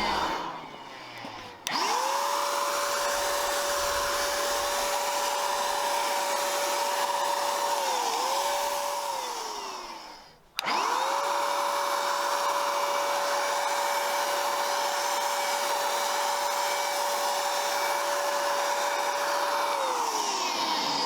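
Electric power tool motor switched on twice, each time spinning up quickly to a steady high whine and then winding down with a falling pitch. During the first run the pitch sags briefly, as if the tool is momentarily loaded.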